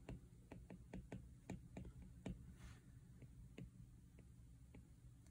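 Faint, irregular clicks of an Apple Pencil tip tapping on an iPad Pro's glass screen as short strokes are drawn, several a second at first and fewer near the end.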